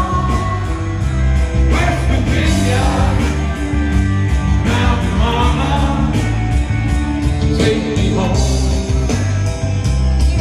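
Rock music playing, with singing over a steady bass-heavy beat.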